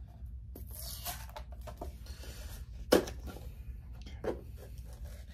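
Handling noise from a plastic tub of pre-workout powder as it is held and reached into: a short rustle about a second in and one loud, sharp click just before three seconds, followed by a few softer knocks, over a steady low hum.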